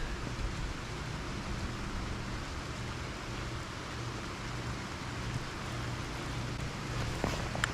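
Steady background noise on a fishing boat: an even hiss over a faint low hum, with a few light clicks near the end.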